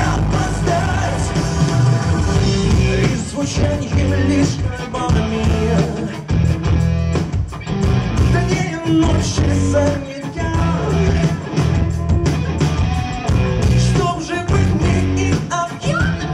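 Loud live pop-rock band music over a concert PA, with a heavy, steady bass beat and a male singer's voice coming in at times.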